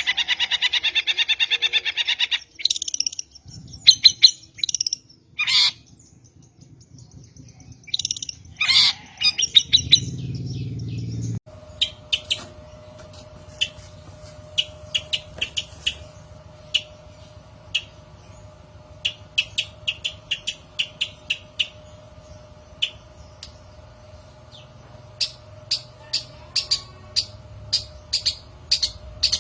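Long-tailed shrike (cendet) calling. It opens with a fast, harsh chatter, then gives scattered short calls. After about eleven seconds comes a run of short, sharp chirps over a faint steady hum.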